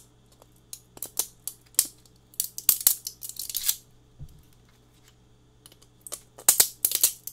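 3D-printed plastic support material cracking and snapping off as needle-nose pliers clamp into it and twist. It comes as scattered sharp clicks and crackles, with a dense run about two and a half to four seconds in and another burst near the end.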